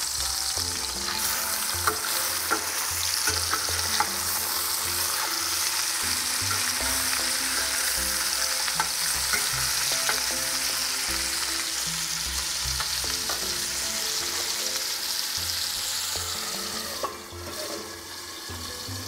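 Gurnard fillets sizzling in hot butter in a stainless steel frying pan, with scattered clicks and scrapes of a metal slotted spatula against the pan as they are turned. Near the end the sizzle drops and goes muffled as a glass lid is set on the pan.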